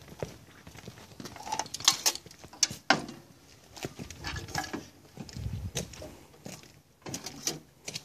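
Metal clunks, knocks and scrapes of an 11 hp Briggs & Stratton engine being set down on a riding mower's frame and shifted into place, with the sharpest knocks about two and three seconds in.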